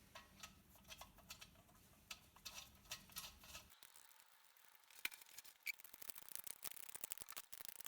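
Faint small clicks and taps of steel bolts being fitted and screwed into the diesel heater's aluminium plate, growing busier after about five seconds.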